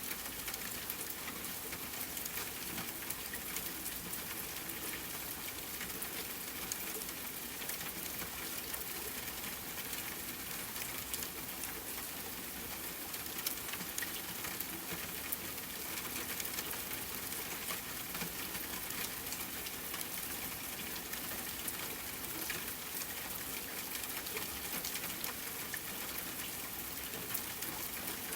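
Steady rain pattering on a tent over an even hiss, mixed with a campfire crackling in many small, sharp ticks.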